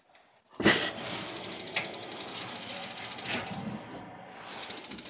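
Propane tankless water heater's spark igniter clicking rapidly and steadily over a rush of water, starting suddenly about half a second in as the cold water is turned on and flows through the heater.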